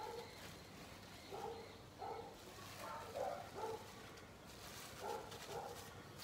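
A dog whimpering faintly in a string of short, pitched whines, with a light crinkle of cling film being peeled off a roast midway through.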